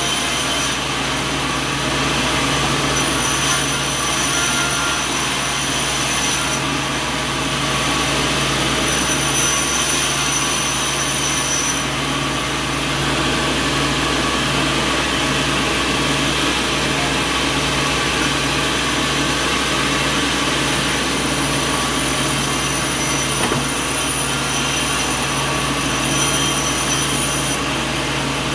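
Sawmill machinery running steadily: a loud motor drone with a low hum, and thin high-pitched whines that come and go.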